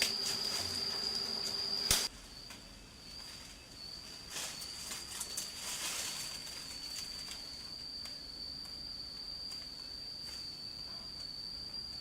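Insects droning outdoors with a steady high-pitched whine. The sound drops abruptly in level about two seconds in, and a few brief rustles follow.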